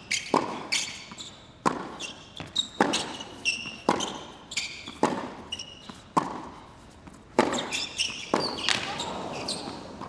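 Tennis rally on a hard court: sharp racket-on-ball strikes about once a second, with ball bounces and short high squeaks of the players' shoes on the court surface.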